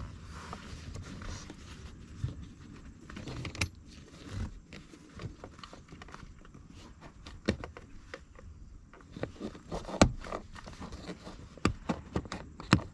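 Plastic seat trim pieces being handled and fitted, with rustling and scraping and a series of sharp clicks and knocks as they snap into place, the loudest clicks in the second half.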